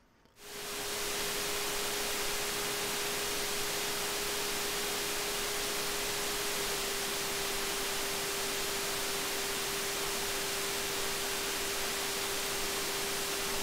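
Steady hiss of an NE5532 audio op amp's own noise, amplified in a gain-of-101 test circuit and played out as sound. It fades in over the first second, then holds level, with a thin steady tone just under 500 Hz running underneath. The noise reads about −79.5 dB on the test set.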